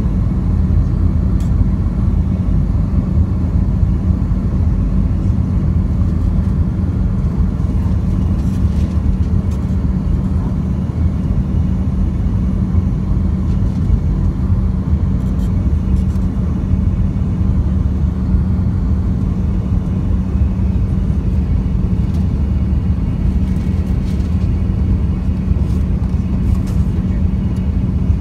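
Steady cabin noise inside an Airbus A319 descending on approach to land: a low rumble of the jet engines and airflow with a steady hum running under it.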